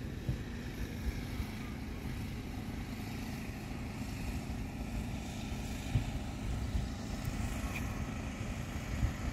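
Wind buffeting the microphone outdoors: a low, irregular rumble with small gusty flutters.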